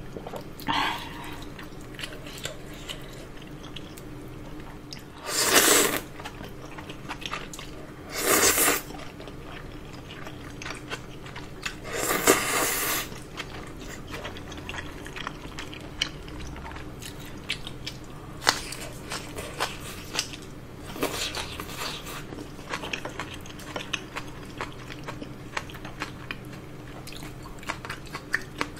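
Close-miked eating of udon noodles: four or five loud slurps, each about a second long, with soft chewing and small mouth clicks in between.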